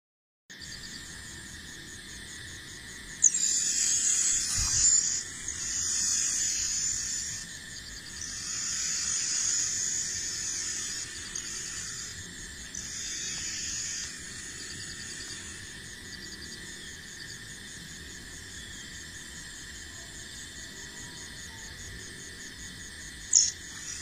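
A chorus of insects trilling high and steady, swelling louder in several stretches between about three and fourteen seconds in. A sharp click sounds once early and again near the end.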